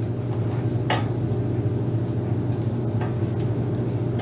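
Steady low machine hum in a workshop, with a single sharp metallic click about a second in.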